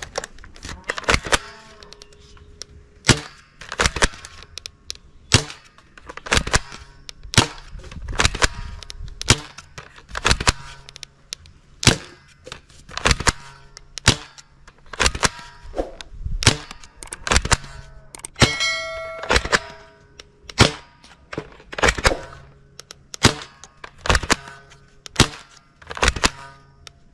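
Toy rifle firing single shots at about one a second, with targets clanging and dinging as they are hit. About two thirds of the way through, one hit rings on for about a second.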